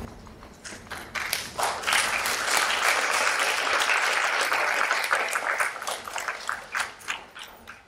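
Audience applauding: a few scattered claps build into full applause about a second and a half in, then thin out to single claps near the end.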